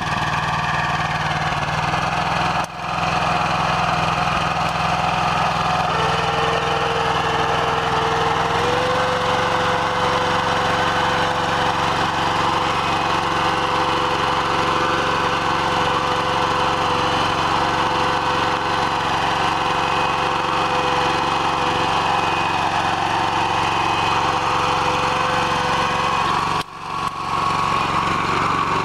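BCS 853 walk-behind tractor's single-cylinder engine running steadily under load, driving the tractor as it pulls a disk-hiller bedshaper through loose tilled soil. A steady whining tone joins it about six seconds in and steps up slightly in pitch a few seconds later. The sound dips out briefly twice.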